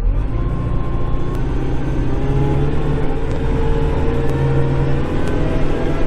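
Kubota Grand L5740 tractor's diesel engine running steadily, heard from inside its cab while it works clearing snow, its pitch shifting slightly up and down.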